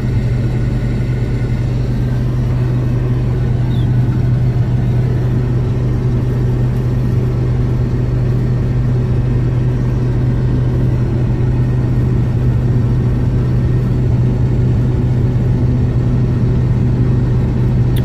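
Combine harvester running steadily, heard from inside the cab while its unloading auger empties the grain tank: a constant low drone with a strong steady hum under it.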